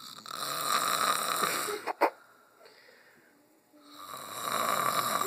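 Snoring: two long, noisy snores about two seconds apart in breath, each lasting about two seconds, with a single sharp click about two seconds in as the first one ends.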